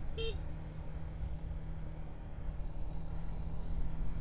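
Sport motorcycle engine running at a steady, even pace while riding, with wind noise rumbling on the microphone.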